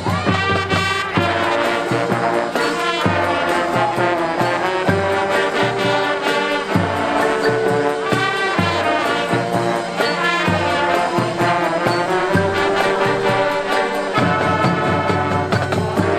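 Marching band playing a brass-led arrangement: sustained horn chords and melody over a steady beat of low drums.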